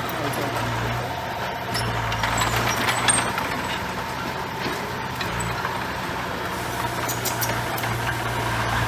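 Heavy diesel construction machine running steadily, with scattered clanks and rattles.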